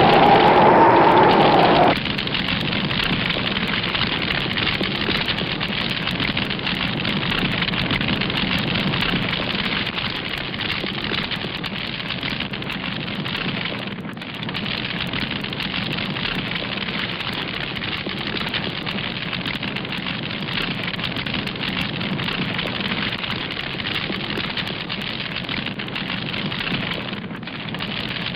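Steady rushing hiss like rain or wind, an ambient sound effect. A wavering tone in the first two seconds stops abruptly, and the hiss dips briefly twice, about halfway through and near the end.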